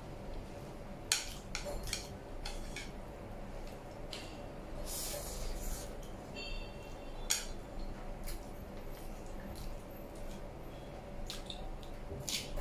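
Close-up eating sounds: spicy instant noodles slurped and chewed off wooden chopsticks, with scattered small clicks of the chopsticks against the plate. A brief high whistling squeak comes about halfway through.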